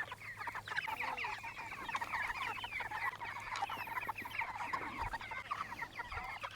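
A flock of young broiler (meat) chickens calling together: a dense, unbroken chorus of short high chirps and clucks from many birds at once.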